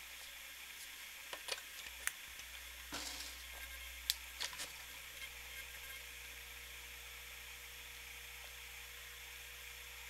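A few clicks and knocks as the plug goes in. About four and a half seconds in, a faint steady low hum starts: the minifridge compressor trying to start and stalling, which the owner puts down to the refrigerant pressures not yet having equalized.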